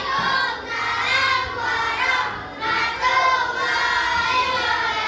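A class of children chanting together in unison, their many voices in a drawn-out, sing-song group recitation.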